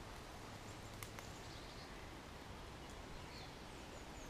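Faint outdoor ambience with a few short, high bird chirps and two small clicks about a second in.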